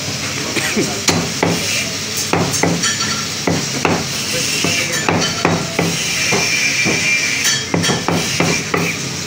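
Butcher's cleaver chopping through lamb meat and bone onto a wooden chopping block: sharp, repeated chops, about two a second, in an uneven rhythm.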